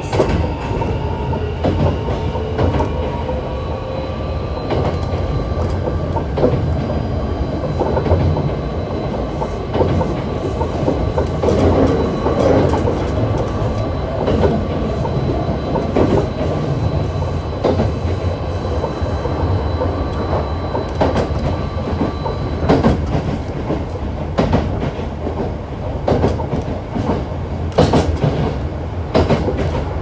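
Running sound of a Hankyu 7300 series electric train with a Toyo IGBT VVVF inverter: the motor whine rises at first, then holds steady, and cuts out about three-quarters of the way through as power is shut off. Wheels clack over rail joints throughout, over a low running rumble.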